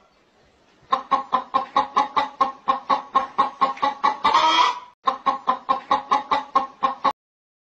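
Domestic hen clucking rapidly, about four clucks a second, with one longer drawn-out call about four seconds in, while laying an egg. The clucking cuts off abruptly near the end.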